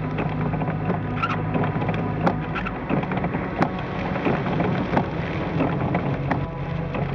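Rain hitting a moving car's windshield and body in a cloudburst, heard from inside the cabin: irregular sharp drop ticks over a steady drone of engine and tyres on the flooded road.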